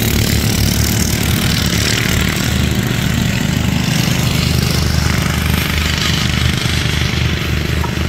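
Small engines of several racing lawn mowers running together on the track, a steady loud drone with a fast low pulsing.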